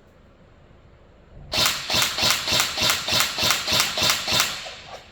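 INF M4 14.5-inch electric airsoft rifle being test-fired after a circuit repair: a string of about a dozen sharp shots at roughly four a second, starting about one and a half seconds in.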